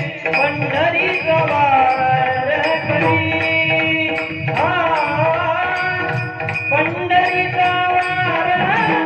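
Indian devotional singing in a high, sweet voice, with long held and gliding notes, over percussion that keeps a steady beat.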